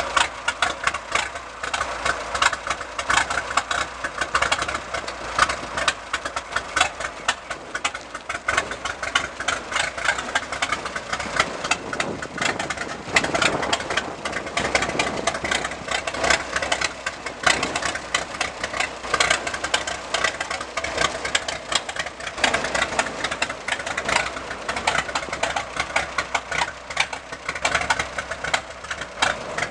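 Parrett antique tractor's engine running steadily with a rapid, even firing beat as the tractor drives slowly on its steel wheels.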